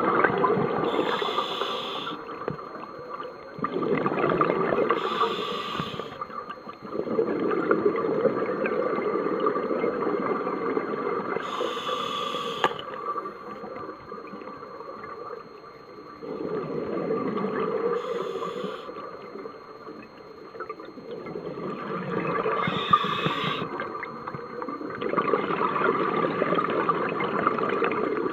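Open-circuit scuba regulator breathing, heard underwater: a short hiss with each breath, then a longer rush of exhaust bubbles. The breaths come slowly and unevenly, one every few seconds.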